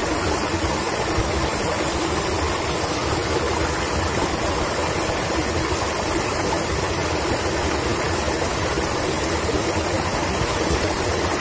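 Steady rush of running water, an even noise that holds level throughout.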